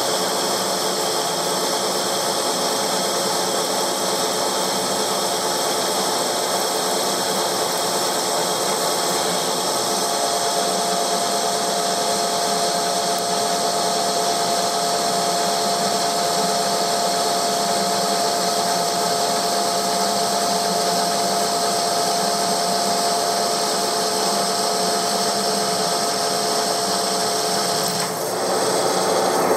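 TOS SN63B lathe taking a turning cut on a metal wheel hub, the carbide insert cutting steadily and throwing sparks. A steady whistling tone joins about ten seconds in and stops a couple of seconds before the end. The sparking points to a worn insert that the machinist thinks should be replaced.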